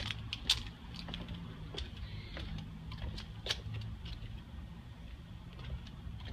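Footsteps on wooden deck boards: irregular light clicks and taps, the sharpest about half a second in, over a low steady rumble.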